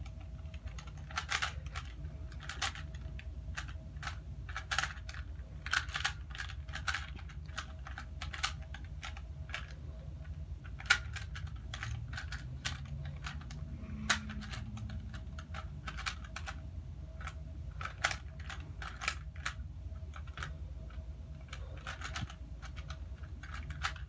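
Plastic 3x3 Rubik's Cube layers being turned quickly by hand: a fast, irregular stream of clicks and clacks.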